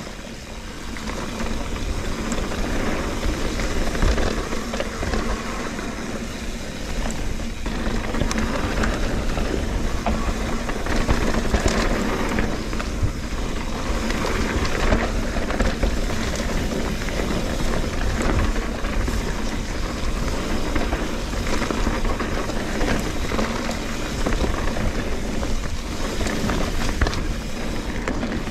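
Trek Fuel EX 8 full-suspension mountain bike ridden fast down a dirt trail: the tyres roll over the ground and the bike rattles, with frequent small clicks and knocks, under steady wind noise on the action camera's microphone.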